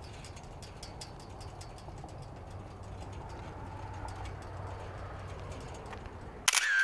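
Steady low outdoor background noise with a few faint ticks. Near the end a much louder sound with a wavering high pitch cuts in suddenly.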